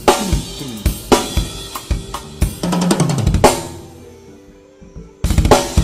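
Drum kit being played: snare, bass drum and cymbal hits, with a fast run of strokes about halfway through. The drums then ring out and fade for a second or so before loud hits resume near the end.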